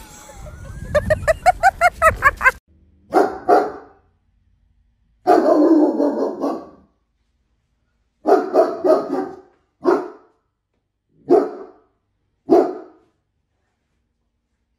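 A large black dog barking in alarm at a stranger outside the window: single barks and short bursts of barks, spaced a second or two apart, one longer run of barks in the middle. It is preceded in the first two seconds by a fast run of short pitched sounds that grows louder and then cuts off.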